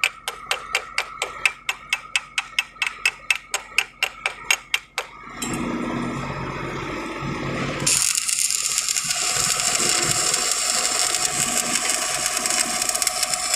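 Metal struck in a fast, even rhythm of about four to five sharp taps a second, stopping about five seconds in. Then comes a steady harsh hiss from pipe-welding work, with a steady whine underneath from a little later.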